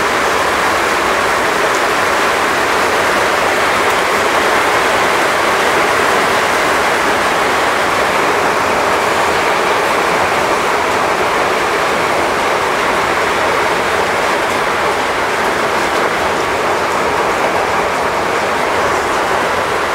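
Heavy rain pouring down: a loud, steady hiss that does not let up.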